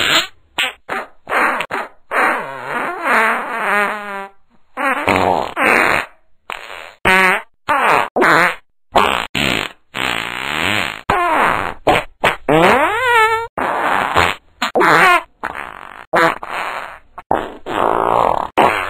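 A rapid string of fart noises, one after another: short blasts and longer rattling ones, some bending up or down in pitch.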